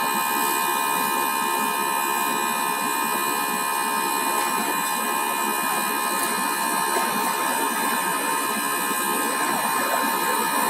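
Common rail injector test bench running steadily through a Bosch injector's flow test. Its high-pressure pump drive whirs and the injector under test fires continuously, with several steady high tones above the mechanical noise.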